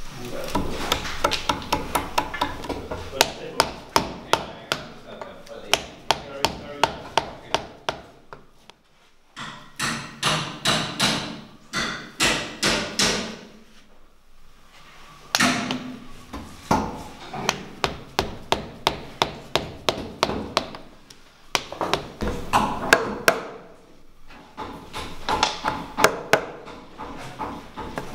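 Mallet striking a chisel to chop a mortise into a softwood timber beam: a rapid run of sharp wooden knocks, about three a second, with short breaks.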